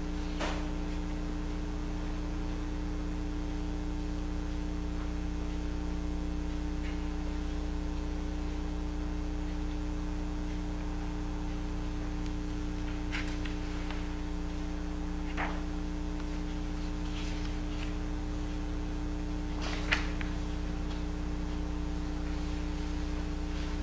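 Steady electrical mains hum with a stack of even overtones, and a few faint brief rustles of book pages being turned, the clearest about twenty seconds in.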